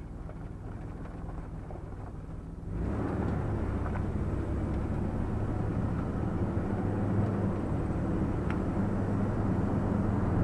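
Vehicle engine and road noise heard from inside the cab while driving: a steady low hum that jumps louder about three seconds in, then slowly builds.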